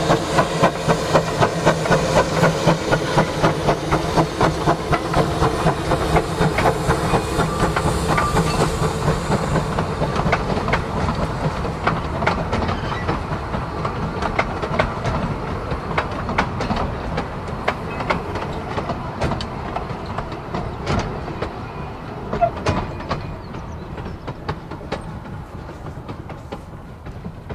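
Baldwin 4-6-2 narrow-gauge steam locomotive working its train away: quick, regular exhaust beats at first, then the coaches clicking over the rail joints as the sound slowly fades.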